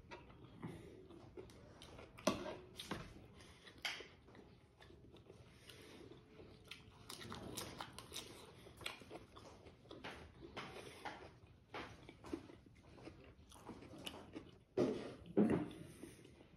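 Close-up chewing and mouth sounds of a person eating boiled smoked pork and innards: a run of short wet smacks and clicks, with a few louder crunches and bumps about fifteen seconds in.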